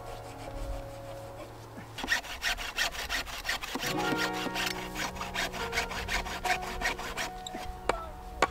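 Hand saw cutting through a dead branch in quick, even back-and-forth strokes. The sawing starts about two seconds in and stops about a second before the end, over background music.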